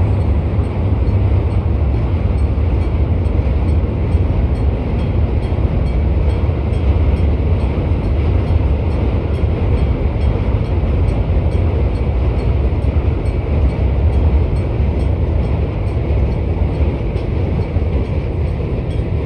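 A steady, loud low rumble from a vehicle, with faint, evenly spaced ticking high above it, about two to three ticks a second.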